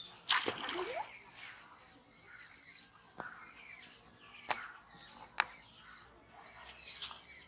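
Small birds chirping and calling over outdoor ambience. A sudden loud noisy burst comes just after the start, and sharp clicks come about three, four and a half and five and a half seconds in.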